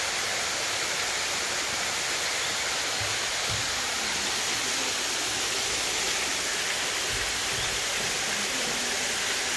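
Water cascading down a stone feature wall into a swimming pool: a steady rushing hiss of falling water, with a couple of faint low bumps partway through.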